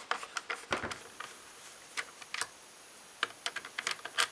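Irregular light clicks and taps as hands handle and work on the black plastic housing of a JBL speaker dock during disassembly.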